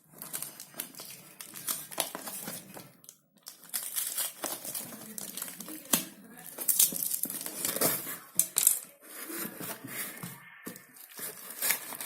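Watch packaging being handled and unwrapped: irregular crinkling and rustling of wrapping, with scattered sharp clicks and taps.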